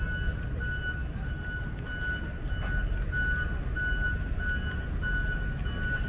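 Road roller's reversing alarm beeping at an even pace, about one and a half beeps a second, over the low steady rumble of diesel road-compaction machinery.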